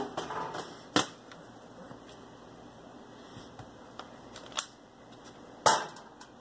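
Plastic water bottle tossed at a grill's side shelf, knocking against the grill and the concrete: a few sharp knocks, one right at the start, another about a second in, and two more near the end.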